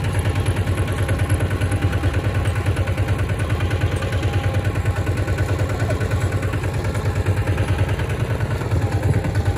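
A two-wheel walking tractor's single-cylinder diesel engine runs steadily as it pulls a loaded trailer, with a rapid, even pulsing beat.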